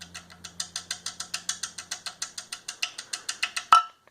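Balance shaft chain drive of a Chrysler 2.4L engine rattling and clacking in a fast, even series of metallic clicks, about ten a second and quickening slightly, ending in one sharper click. The chain is slapping inside its housing through badly worn guides. The owner takes this for the cause of the metallic knock heard in the top end of these engines.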